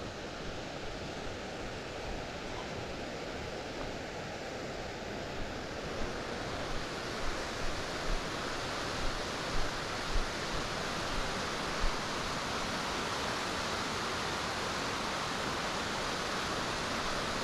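Waterfall's rushing water, a steady hiss that grows somewhat louder about a third of the way in. Soft low thumps come roughly once a second through the second half.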